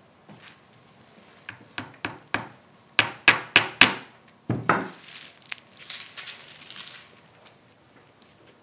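Claw hammer tapping push pins into a wooden picture frame: a few light taps, then about four hard blows in quick succession around the middle and a couple more after, followed by a short rustle.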